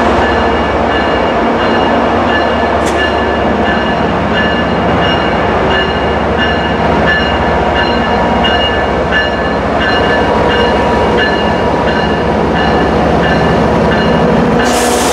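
MBTA MPI HSP46 diesel-electric locomotive slowly hauling a commuter train past at close range, its engine running loudly and steadily while a bell rings at an even pace. A short hiss of air comes near the end.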